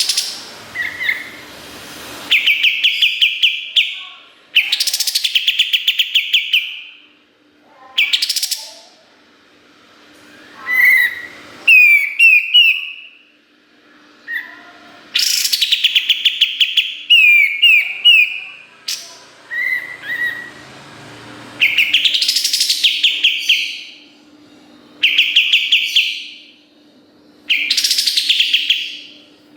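Kapas tembak songbird singing a series of rapid rattling trills, its 'tembakan' bursts, each lasting a second or two. Sharp rising whistles and short chirps come in between. A faint steady hum runs underneath.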